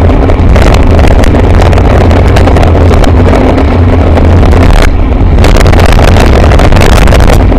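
Heavy wind rumble buffeting a bicycle-mounted camera's microphone while riding at speed, mixed with traffic noise on a wet road as a white van passes close alongside about four seconds in.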